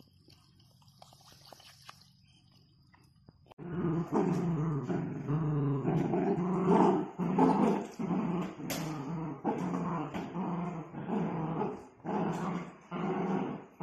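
Miniature dachshunds growling in play while tugging a rope toy, starting about three and a half seconds in. The growls come in a long rough run with short breaks.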